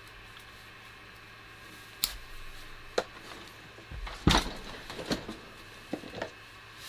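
Scattered clicks and knocks of small quadcopter parts and tools being handled on a workbench during a teardown, the loudest cluster about four seconds in, over a steady low hum.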